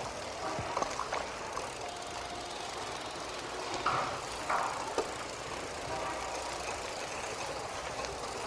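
City street traffic: a steady wash of traffic noise, with a few short sharp clicks and two brief louder bursts about four seconds in.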